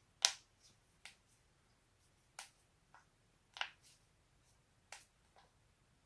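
Joints cracking in neck and back cracking: a string of short, sharp pops, about six of them spaced a second or so apart, with a few fainter clicks between and the first pop the loudest.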